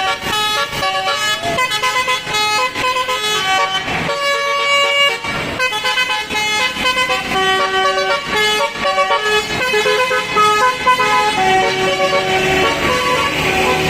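Tunggal Jaya bus's basuri telolet horn playing a tune: a long run of loud horn notes, changing pitch several times a second.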